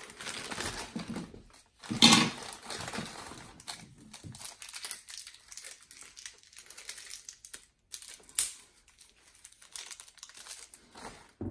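Hands working plastic wall-box parts at a drywall wall: scattered rustling and light plastic clicks, with a sharper knock about two seconds in and another near eight seconds in.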